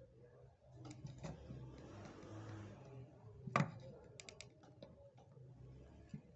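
Small, sharp metal clicks and light scraping of a steel hand-setting tool working the bezel of a silver ring around a cabochon stone, a handful of clicks with the sharpest about three and a half seconds in and a quick run of clicks just after.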